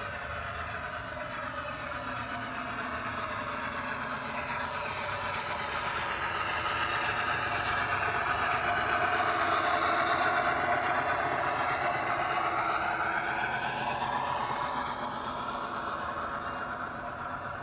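G scale model train running past: the motor and wheels on the track grow louder to a peak about ten seconds in, then fade as it moves away.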